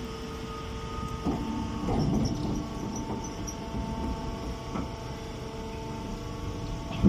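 Machinery running with a steady hum of several held tones over a low rumble, broken by a few short knocks about a second in, near two seconds, and at the very end.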